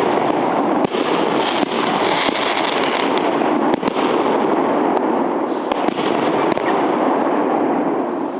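Fireworks going off: a dense, steady hiss with sharp bangs scattered through it.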